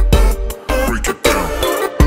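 Music: a pop song with a steady drum beat and deep bass.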